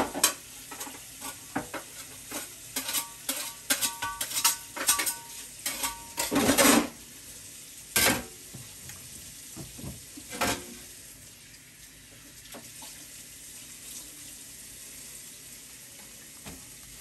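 Metal utensils and bowls clattering and scraping in quick knocks, some ringing briefly, for about the first seven seconds, with two more single knocks after that. Under it and then alone, a faint steady sizzle of water on the still-hot steel griddle.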